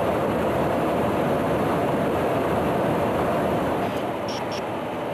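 Steady in-flight cabin noise inside a KC-135 tanker, the hum of engines and airflow heard from the boom operator's station. Two short high beeps come about four seconds in.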